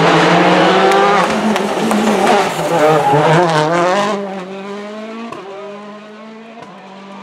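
Rally car engine at high revs, its pitch rising and falling through the gears as the car slides through a loose, dusty corner with some tyre noise. About four seconds in it drops away sharply as the car pulls off, leaving a fainter engine note and a couple of sharp pops.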